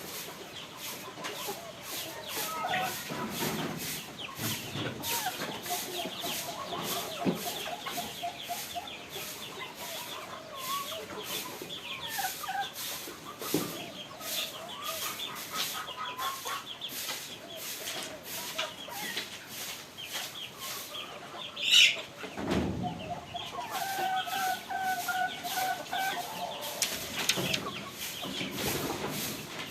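Chickens clucking, with several drawn-out runs of quick, evenly repeated clucks. Faint clicks tick along steadily underneath, and one sharp, loud noise cuts in briefly about two-thirds of the way through.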